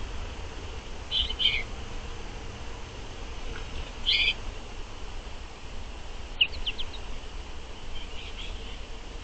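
Small songbirds giving short chirps in four brief clusters, a few seconds apart, over a steady low hum.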